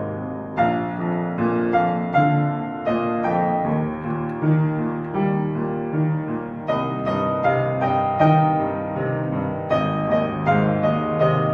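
Slow piano music played on two upright pianos at once, one hand on each keyboard: sustained chords under a melody, with a new note or chord struck about every half second to second.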